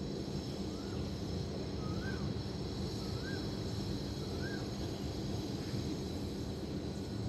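Steady low rumble of distant city traffic. Over it, a bird gives a short rising-and-falling call four times, about once every second and a quarter, stopping about two-thirds of the way through.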